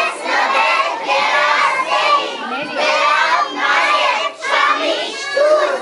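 A group of young children singing together in unison, loudly and somewhat shouted, in short phrases with brief breaks between them.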